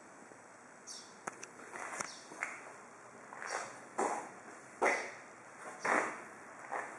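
Footsteps scuffing on a concrete floor, about one a second, with a couple of sharp clicks early on, over a steady hiss. No engine is running.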